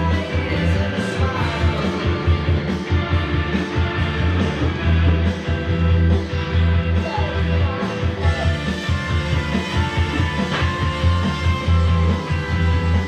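Rock music with singing and guitar over a heavy, steady bass line, playing without a break.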